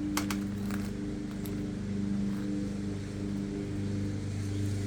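A steady low machine hum, such as a fan or air-conditioning unit, with a few light clicks from handling small bicycle parts in the first second and a half.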